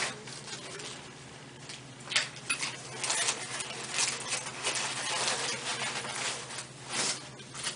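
Irregular rustling and scuffing of clothing and body against a treatment table as a patient shifts position, with a sharp click about two seconds in. A low steady hum runs underneath.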